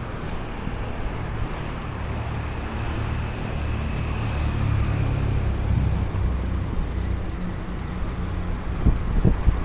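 Wind rumbling steadily on the microphone of a moving inline skater, swelling a little midway, with a few sharp knocks near the end.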